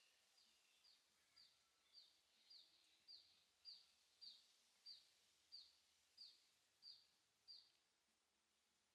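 A bird calling: a run of about fifteen short, high, down-slurred notes, about one and a half a second, growing louder and then stopping near the end.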